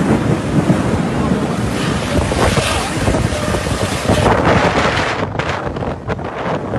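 Heavy storm rain with strong wind buffeting the microphone: a loud, gusting rush of noise with a deep rumble underneath.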